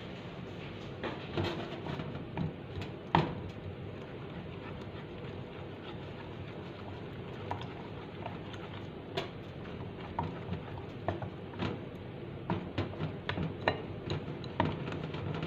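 Black plastic slotted spatula stirring thick oat-and-banana pancake batter in a ceramic bowl, with irregular clicks and taps of the spatula against the bowl that come more often in the second half.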